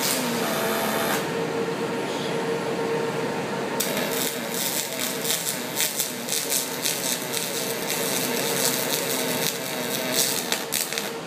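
Robotic arc welding: the welding arc crackling and sputtering, stopping about a second in and starting again near four seconds in, over a steady machine hum.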